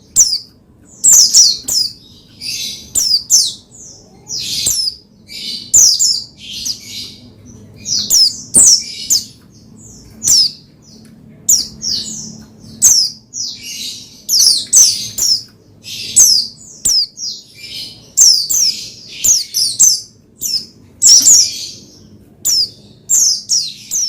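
White-eye (pleci) calling: rapid, high, sharp chirps and short falling whistles in repeated clusters, a burst every second or so.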